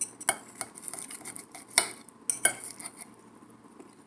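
Steel knife and fork cutting a lamb chop on a plate: the blade sawing and the metal clicking and scraping against the plate several times, sharpest a little under two seconds in and again about half a second later, then quieter.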